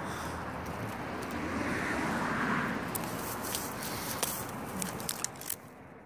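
Dry brush and twigs rustling and crackling as someone pushes through a leafless thicket, with several sharp snaps in the second half, over a steady rushing noise.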